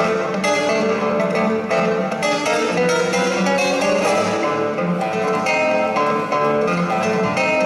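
Music on plucked string instruments, with many notes sounding together and struck in a steady rhythm.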